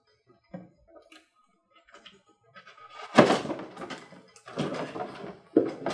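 Cardboard box being opened: a few faint scrapes and taps of the box cutter on the cardboard, then the flaps pulled open with loud scraping and rustling of cardboard from about three seconds in.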